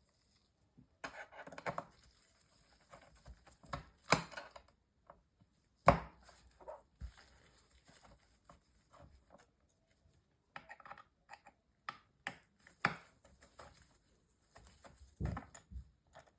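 Scattered clicks, taps and short scrapes of small tools and laptop parts being handled on a work surface, with a sharper knock about six seconds in.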